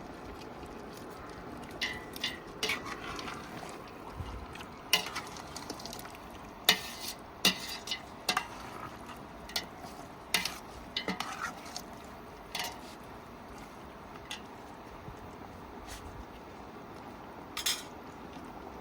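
A spoon stirring food in a cooking pot, clinking against the pot's side at irregular moments over a steady low background.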